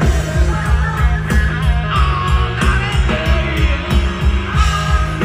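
Live rock band playing at full volume: drums keeping a steady beat under bass and electric guitar, with no vocal line heard.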